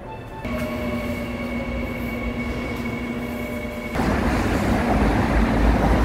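A running vehicle: a steady whine with a slightly falling tone, then about four seconds in a louder rushing rumble that cuts off abruptly.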